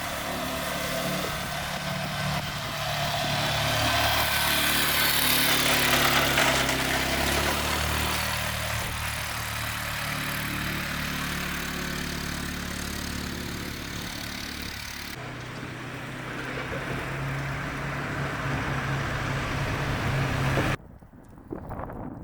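An engine running, its pitch shifting up and down, under a steady rushing noise that swells for a few seconds near the start. The sound changes abruptly twice later on.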